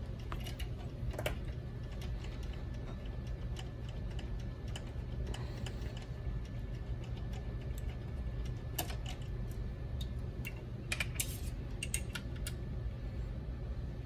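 Scattered light clicks and taps of small metal coax connectors and cables being handled and worked loose inside an opened electronic instrument chassis, with a cluster of clicks near the end, over a steady low hum.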